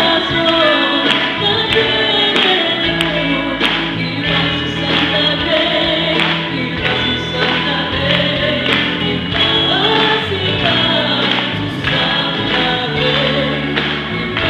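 Upbeat gospel music played by a live band: several voices singing together over a steady drum beat and bass.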